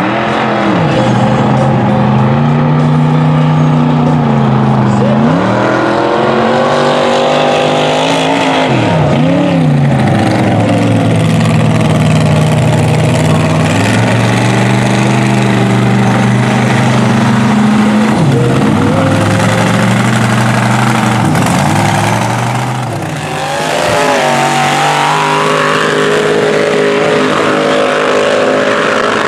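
Mega mud truck's engine revving hard while it ploughs through a mud pit, its pitch climbing and dropping again and again with the throttle, over the hiss of tyres churning water and mud. The engine note falls off briefly about three-quarters of the way through, then picks up again.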